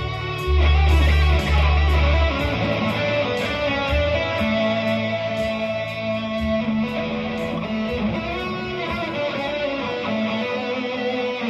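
Gibson Les Paul electric guitar improvising lead lines over a backing track. The deep bass notes stop about two seconds in, and long held guitar notes ring on through the rest.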